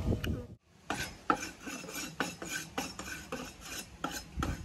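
Rhythmic rasping scrapes, about four to five strokes a second, starting about a second in after a brief drop to silence.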